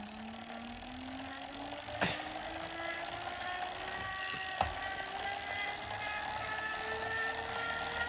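Wahoo Kickr v2 smart trainer's belt drive and flywheel spinning up under pedalling: a steady whine that rises slowly in pitch as the speed builds, with two sharp clicks about two and four and a half seconds in. The belt is slightly slackened and the flywheel carries an added counterweight against high-speed vibration.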